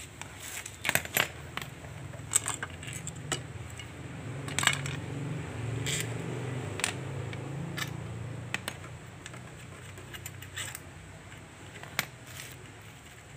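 Scattered metallic clicks, clinks and taps of hand tools, screws and the engine side cover as a Suzuki Shogun motorcycle's magneto cover is worked loose and tools are picked up off a concrete floor. A low hum swells in the middle and fades.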